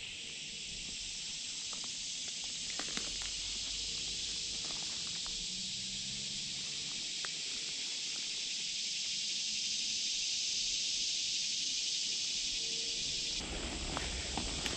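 A dense insect chorus in summer woods, a steady high-pitched drone. About a second before the end, footsteps and rustling brush come in as someone pushes through undergrowth.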